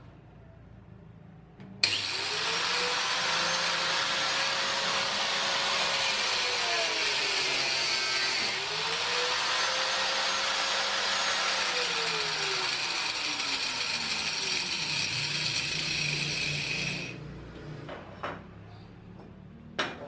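Angle grinder mounted in a wooden stand, switched on with a sudden start and running for about fifteen seconds, its pitch sagging twice as it is loaded in a cut and picking up again, then switched off and spinning down. A few short clicks follow near the end.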